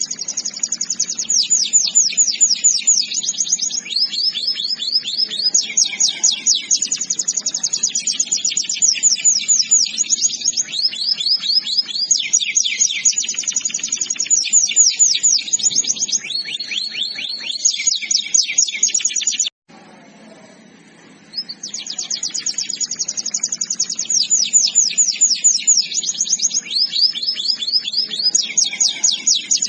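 Domestic canary singing long, rapid trills: rolls of fast repeated sweeping notes, high-pitched. The song breaks off for about two seconds just past the middle, then resumes.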